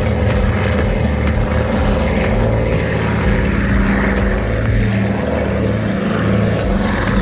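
Twin radial piston engines of a PBY Catalina flying boat running steadily at low taxiing power, a deep even drone.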